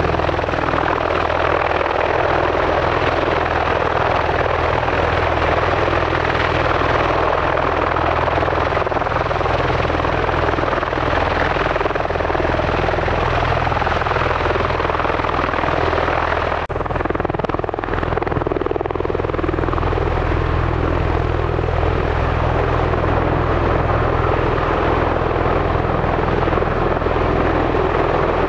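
MV-22 Osprey tiltrotor running its twin turboshaft engines and proprotors: a loud, steady roar over a deep, even rotor hum, with a brief dip in level a little past halfway.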